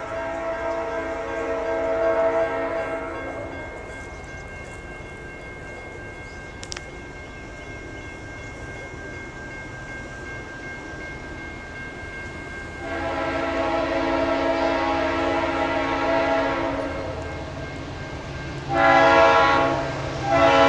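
Diesel locomotive horn of an approaching train: a long blast fading out about 3 seconds in, a second long blast about 13 seconds in, then a short blast and the start of another long one near the end, each louder than the one before. It is the long-long-short-long pattern sounded for a grade crossing.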